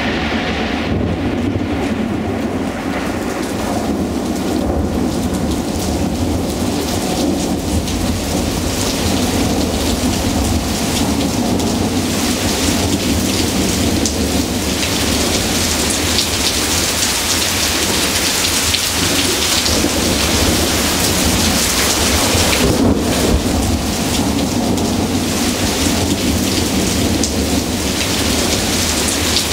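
Heavy, loud thunderstorm rain pouring down steadily, with thunder rumbling low underneath.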